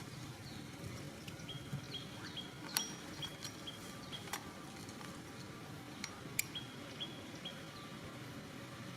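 Outdoor ambience with a run of short high chirps, about two to three a second, and two sharp clicks about three and six seconds in.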